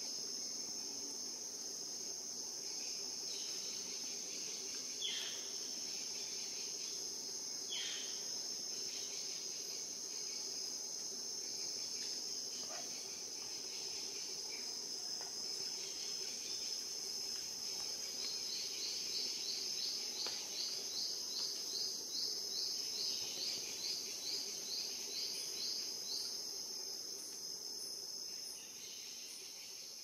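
Insect chorus: a steady high-pitched buzz of insects. A second insect chirps in a regular series, a little over two chirps a second, for about eight seconds starting about two-thirds of the way through. Two short falling calls come in the first third.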